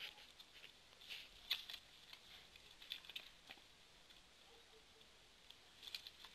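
Faint, scattered light taps and scuffling, in irregular small clusters, from a dog and a cat at play.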